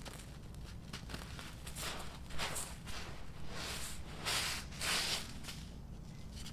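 Dry sand and crumbled charcoal worked by hand: clumps crushed and crumbled, then a palm sweeping through the loose grit. It makes a series of gritty crunches and hissing swishes, loudest about four to five seconds in.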